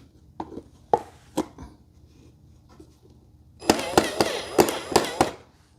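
A few light clicks and taps, then, a little past halfway, a short burst of hard knocks and rattling with a bright metallic ring, as shelf parts and hardware are handled during assembly.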